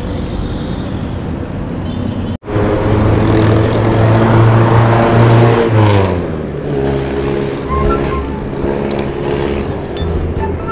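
Roadside traffic, with a passenger jeepney's diesel engine passing close: a loud, steady engine drone whose pitch drops as it goes by, about six seconds in, then fades into the general traffic noise.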